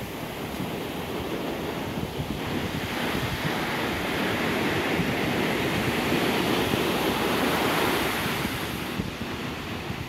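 Ocean surf washing up a sandy beach, a steady rush that swells a few seconds in and eases off near the end.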